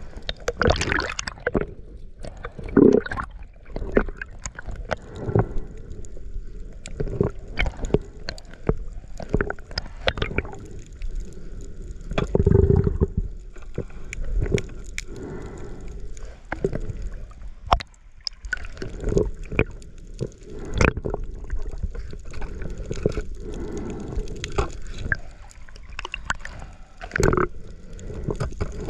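Water heard underwater: gurgling and sloshing around the camera, with irregular sharp clicks and knocks throughout and a longer, louder gurgling rush about twelve seconds in.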